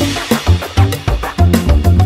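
Background music with a steady beat: deep bass notes and drums.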